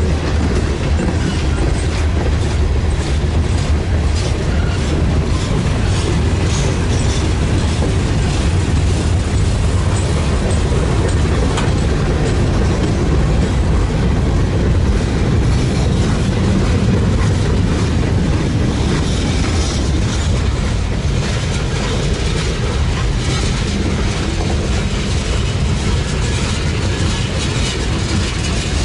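Freight train cars rolling past on the rails, a loud steady rumble of wheels on track that holds through the whole passage.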